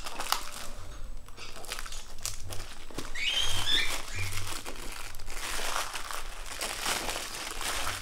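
Crinkling and rustling of a parcel's plastic wrapping and packing tape as it is cut open with scissors, with a scatter of short sharp clicks.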